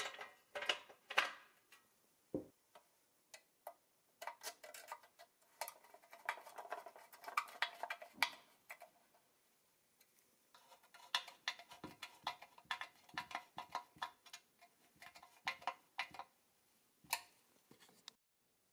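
Restored Doepke Jaguar XK120 toy car's steering being worked by hand: light metal clicks and rattles from the wheel and linkage, in three runs with short pauses between.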